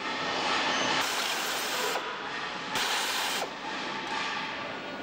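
Steady hissing, rushing noise of an aircraft assembly shop, rising and falling slightly, with no distinct knocks or tool strikes.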